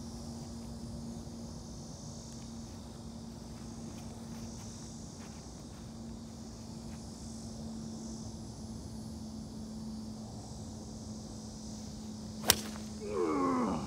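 Golf iron striking a teed ball: one sharp crack near the end, over a steady low hum and a faint high hiss.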